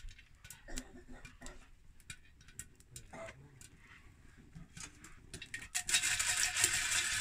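Maize kernels roasting in a metal pot over a wood fire: scattered sharp crackles, then about six seconds in a sudden loud, dense hiss and rattle as the pot is stirred.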